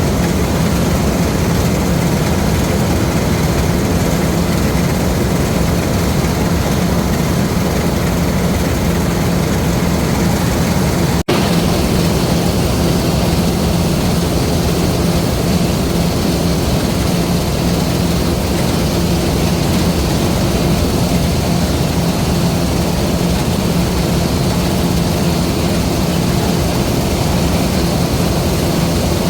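LOVOL RG130 EVO rice combine harvester running steadily under a heavy, constant engine drone with a low hum. There is a momentary break about eleven seconds in, and the sound then carries on unchanged.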